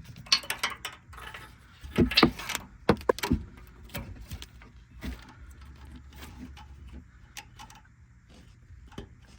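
Light clicks, knocks and rattling as the wheel-speed sensor wire and its plastic clips are handled and snapped into place, busiest about two to three seconds in, then scattered lighter ticks.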